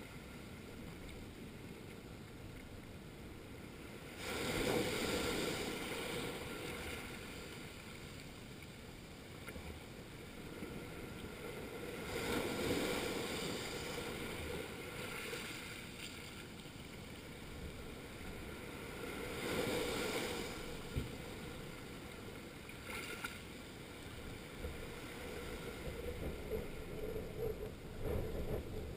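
Small sea waves breaking and washing up over a rocky shore close to the microphone. Three larger surges come about every eight seconds, each starting suddenly and fading over a few seconds, with smaller washes between them.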